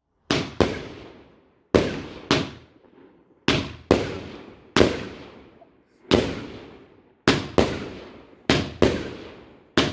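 Fireworks going off in a steady series of sharp bangs, mostly in quick pairs about every second or so, each dying away in a long echo.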